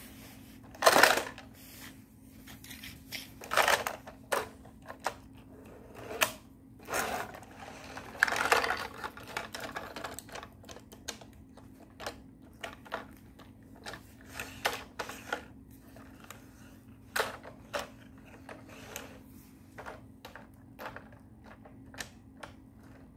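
Plastic LEGO train cars and pieces being handled, clicking and clattering irregularly against the plastic track and the wooden floor, over a faint steady hum.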